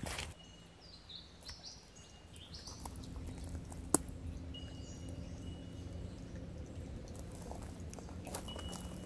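Small birds chirping in woodland, with several thin, high held whistles and short chirps, and one sharp click about four seconds in. A faint low hum sits underneath in the second half.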